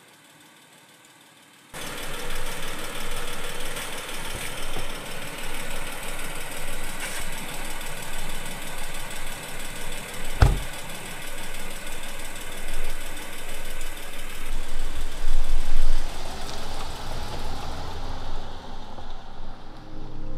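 A vehicle engine running unevenly, cutting in suddenly about two seconds in, with one heavy thump about halfway through.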